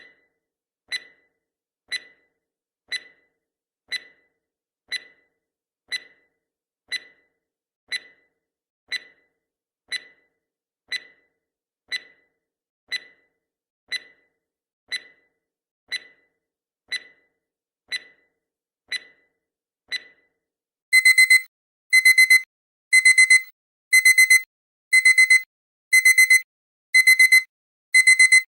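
Countdown timer sound effect: a clock ticks once a second, then about twenty seconds in the time-up alarm goes off, loud high-pitched bursts of rapid beeps repeating about once a second.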